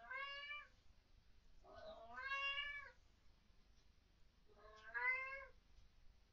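Domestic cat meowing three times in drawn-out calls, the second the longest, picked up by a home security camera's microphone.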